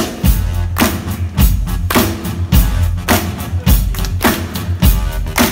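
Live rock band with a drum kit keeping a steady beat, about two strokes a second, over bass, with hand claps going along with the beat.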